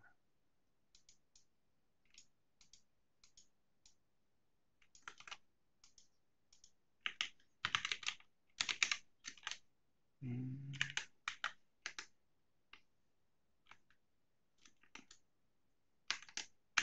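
Computer keyboard typing: scattered single key clicks, then quicker runs of keystrokes about seven to ten seconds in and again near the end.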